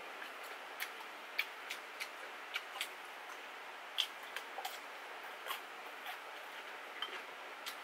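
Quiet eating at a table: about a dozen soft, scattered clicks and taps from chopsticks and chewing, over a faint steady hiss.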